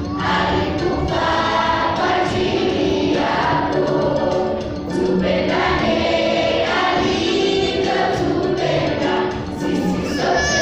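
A large children's choir singing a gospel song together, in phrases with brief breaks between them about every five seconds.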